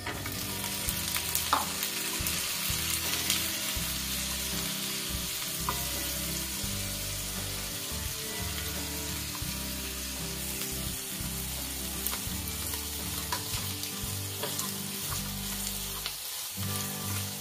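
Boiled snail meat sizzling as it is tipped into hot garlic butter and fried in a pan, with a wooden spatula now and then scraping and stirring it. The sizzle starts suddenly as the snails hit the butter.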